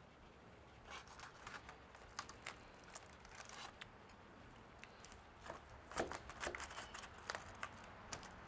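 A long knife cutting through a rack of smoked baby back ribs on aluminium foil: faint scattered crinkles and scrapes of the foil, with a cluster of louder crackles about six seconds in.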